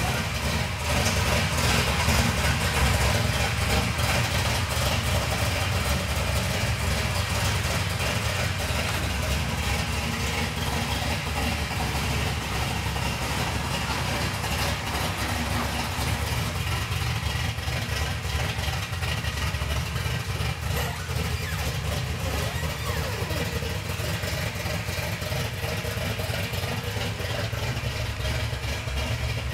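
The 1949 GMC 100 truck's fuel-injected 355 cubic-inch V8 idling steadily, a little louder in the first few seconds.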